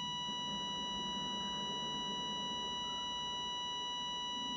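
A steady electronic beep tone, like a test tone, held without a break over a low rumbling hiss.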